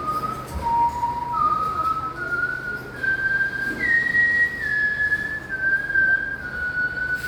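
A slow, whistle-like melody in one pure tone. It steps up note by note to its highest note about four seconds in, then steps back down.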